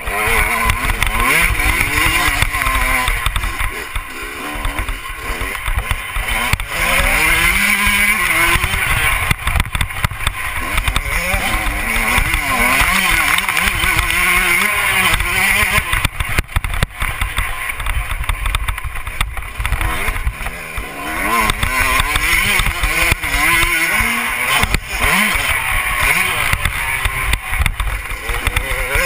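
Dirt bike engine revving hard and dropping back again and again as the rider accelerates, shifts and backs off, with heavy wind rumble on the bike-mounted microphone.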